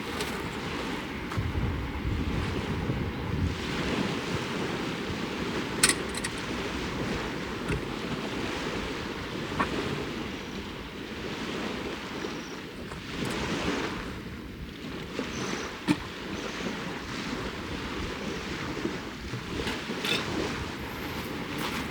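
Waves washing onto the Lake Biwa shore with wind buffeting the microphone, a steady noise, broken by three short sharp clicks.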